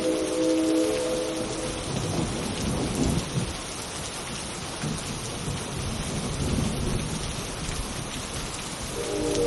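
Steady rain with low rolls of thunder. A synthesized train horn chord of several held notes stops about a second and a half in, and the next horn chord starts near the end.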